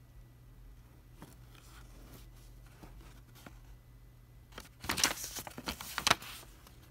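Folded paper instruction leaflet being handled and unfolded: soft intermittent rustling, then a louder burst of paper crinkling for about a second and a half as the sheet is opened out and turned over, about five seconds in.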